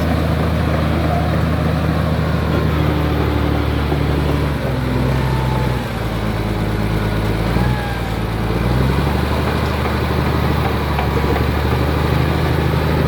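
Komatsu D83E bulldozer's diesel engine running steadily; its note drops in pitch about four and a half seconds in and climbs back up near nine seconds.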